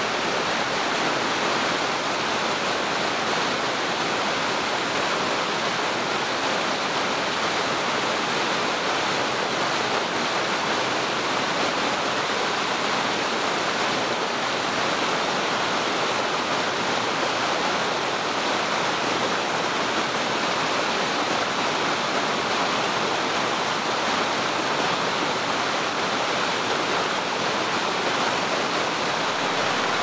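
Wide, low waterfall and the rapids below it pouring over smooth tuff bedrock: a steady, even rush of water.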